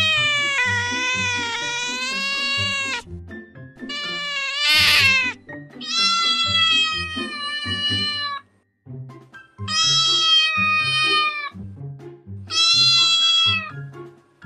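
A domestic cat meowing in five long, drawn-out calls, over background music with a steady low beat.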